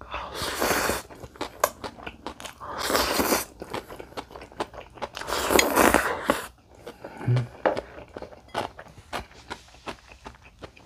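Noodles slurped into the mouth in three loud hissing pulls of about a second each, the last about six seconds in, then wet chewing with many small mouth clicks. The noodles are jjapaghetti, instant black-bean-sauce noodles.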